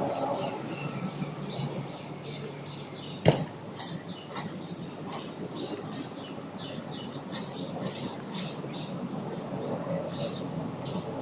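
Small birds chirping repeatedly in short high calls, with one sharp click a little over three seconds in.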